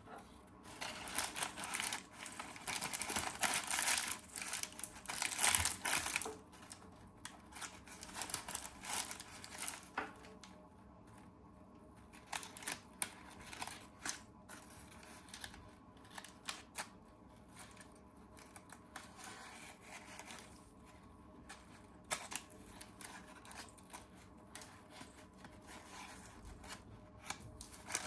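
Rustling and crinkling of something being handled, loudest in the first six seconds, followed by scattered light clicks and taps.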